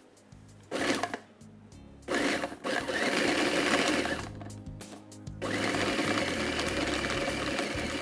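Electric food processor grinding a minced-beef kebab mixture with bread, egg and spices: a short pulse about a second in, then a longer run from about two seconds in that drops off briefly near five seconds and starts again.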